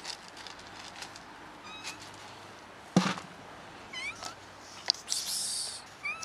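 Calico cat giving about four short, high meows as she comes toward the person with the food. A loud sharp knock comes about three seconds in, and a brief rustle near the end.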